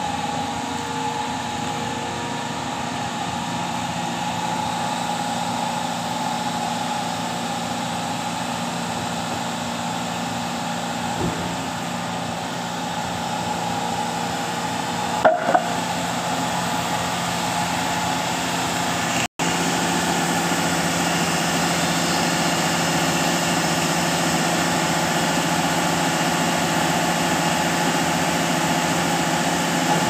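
Engine of a SANY 55 m truck-mounted concrete pump running steadily with a constant hum, with a couple of short clicks about halfway.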